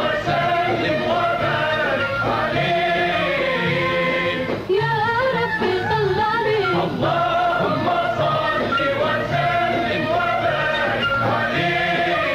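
A radio choral ensemble singing an Arabic song with musical accompaniment, heard through an old, narrow-band recording.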